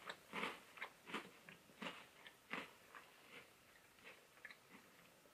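Faint close-up chewing of a crunchy baked cracker chip (Dare Bold 'n Baked Smokey BBQ): a crisp crunch about every 0.7 s that dies down to a few faint clicks after about three and a half seconds.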